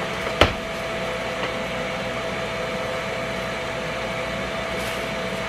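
Steady fan hum with a faint steady whine from a Ninja Foodi XL Grill's air-fry fan running while preheated. A single sharp click about half a second in.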